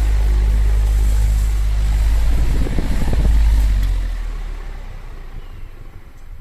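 Oscillating electric fan blowing air across the microphone, a deep wind rumble with hiss that fades away from about four seconds in as the fan head swings aside.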